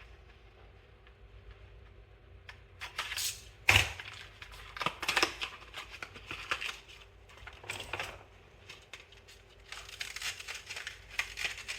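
Hands working on an open laptop while an M.2 SSD is fitted: scattered small clicks, taps and rustles of parts and packaging, starting about two seconds in, with one sharp click just under four seconds in.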